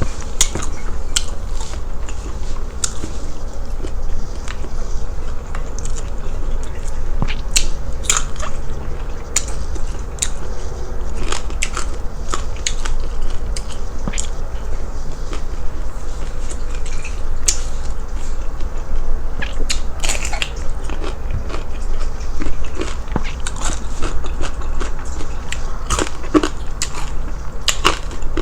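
Close-up chewing and crunching of crispy fried pork fat and skin, with many sharp crackling snaps at irregular intervals as it is bitten and chewed.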